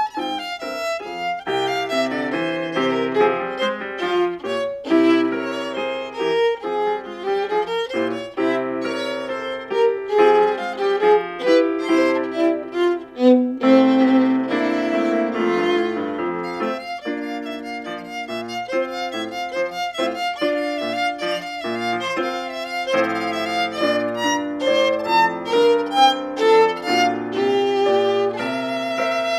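Solo violin playing a lively piece, a quick run of many short bowed notes.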